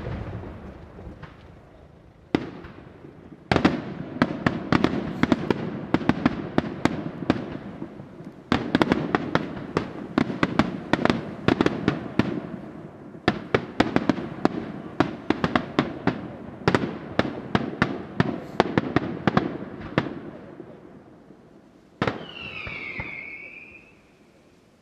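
Daytime aerial fireworks display: single shell bursts, then long runs of rapid sharp bangs in salvos lasting several seconds each. Near the end comes one bang followed by a short falling whistle.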